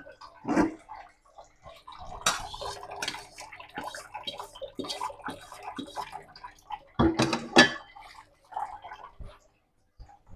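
Kitchenware clattering as a wok and pans are handled and set down at the stove and sink, with a string of light knocks and a few sharper ones about seven seconds in.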